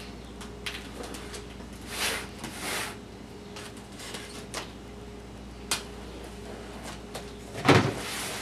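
Cardboard box being opened by hand: a knife scraping and slitting the packing tape with scattered clicks and swishes, then a louder, brief tearing rustle near the end as the flaps are pulled open.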